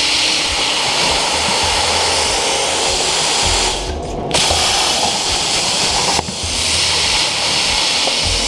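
CNC plasma torch cutting 18-gauge steel at 45 amps: a loud, steady hiss of the arc. Near the middle the arc stops for about half a second, then restarts sharply.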